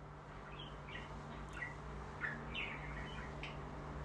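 A small bird chirping: short, falling chirps one or two a second, over a steady low hum.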